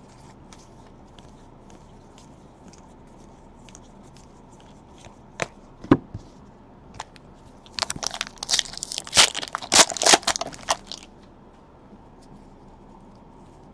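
Sports card pack wrapper torn open and crinkled for about three seconds, past the middle. Before it come soft ticks of cards being handled and two sharper clicks.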